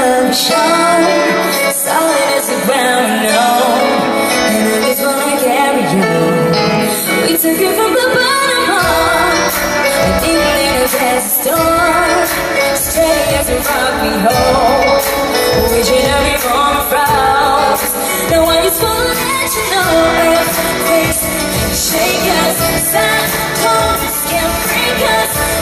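A woman singing a pop ballad live with piano and band accompaniment; the song starts thinly and a full band with bass comes in about nine seconds in.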